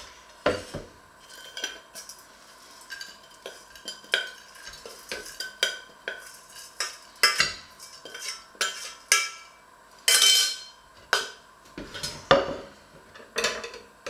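A metal spoon scraping and clinking against a stainless-steel saucepan as its contents are scraped out onto a ceramic plate, with knocks of pan and plate on a wooden board. Irregular clinks come about once or twice a second, with a longer, louder scrape about ten seconds in.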